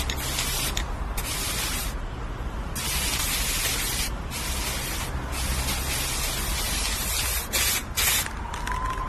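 Aerosol spray-paint can hissing in several bursts with short gaps between them. A faint rising tone begins near the end.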